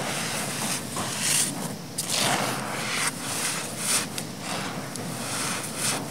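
Hands squeezing and crushing clumps of dry black sand: a rapid run of uneven gritty crunches, with the hiss of grains pouring out of a fist between them.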